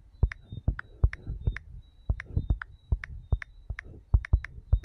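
Fingertips tapping out letters on a smartphone's touchscreen keyboard: an uneven run of soft clicks and thumps, about four or five a second, many with a brief high tick.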